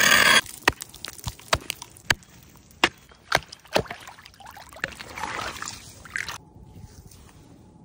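A hatchet chopping through lake ice: about ten sharp, irregular knocks after a brief loud rush of noise at the start, then water sloshing as a hand reaches into the freshly cut hole.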